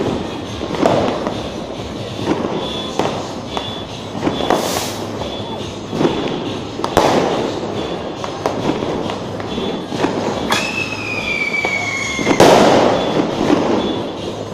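Firecrackers going off one after another, about nine sharp bangs. Near the end a whistle bomb gives a falling whistle for about two seconds that ends in the loudest bang.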